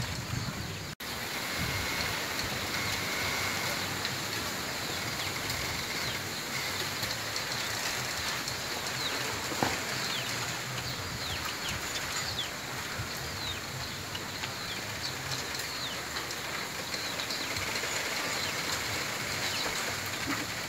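Wind rustling steadily through a bamboo grove, with one sharp crack from the stems about ten seconds in and faint high chirps throughout.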